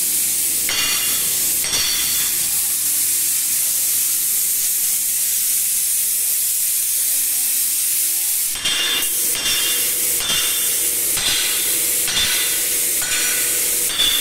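Steady, loud, high-pitched hiss. From about halfway it pulses a little more than once a second, with faint whistling tones in it.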